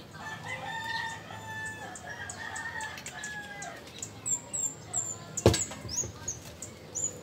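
A rooster crows, one long call lasting about three seconds. Later, high short chirps from small birds, and a single sharp knock about five and a half seconds in.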